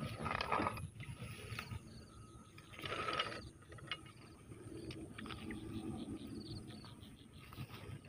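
Wire mesh cage rat trap being pulled out of dry rice straw and handled: rustling straw and scattered light clicks and rattles of the wire cage, loudest briefly about half a second in and again about three seconds in.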